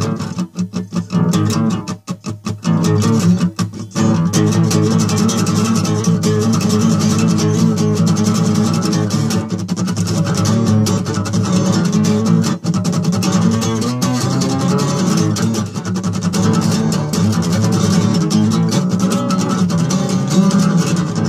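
Guitar strumming chords in a steady rhythm, with a few brief breaks in the first few seconds.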